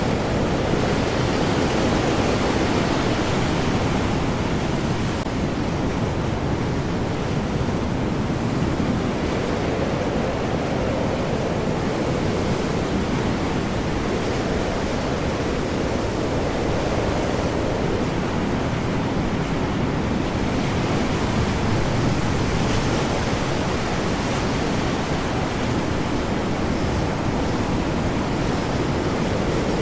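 Stormy open sea in high wind: heavy waves and wind blending into a dense, steady rush of surf noise with no distinct breaks or crashes.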